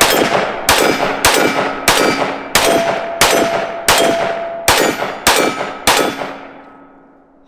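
FK BRNO PSD pistol firing 7.5 FK rounds in steady rapid fire, about nine shots roughly two-thirds of a second apart, with the last shot about six seconds in and its echo fading. Steel plate targets ring on with a clear tone after hits.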